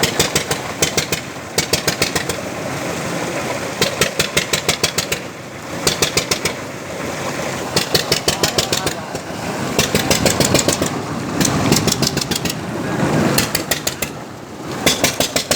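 Carrot washing machine running: a steady mechanical noise with bursts of rapid clatter, about ten knocks a second, every few seconds.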